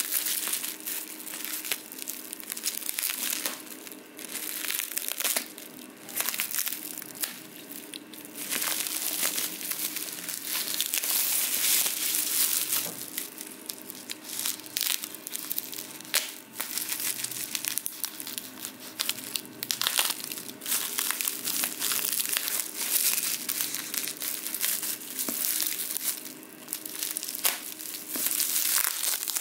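Plastic bubble wrap crinkling and crackling as it is handled and pulled open, with many small sharp crackles throughout.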